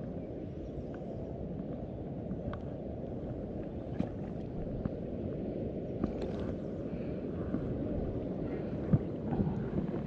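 Steady low rush of the river current flowing below the dam, mixed with wind on the microphone, with a few faint clicks.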